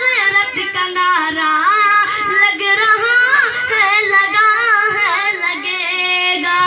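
A boy singing a naat solo, one high voice sliding through long, ornamented held notes.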